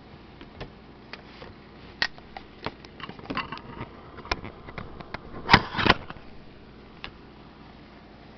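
Handling noise of a flat iron and its blue plastic plate cover and power cord being moved on a hard table: scattered light clicks and knocks, a quick cluster about three seconds in, and the loudest clatter about five and a half seconds in.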